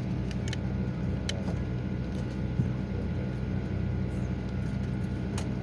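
Steady low hum of an airliner cabin at pushback, with a few short sharp clicks over it.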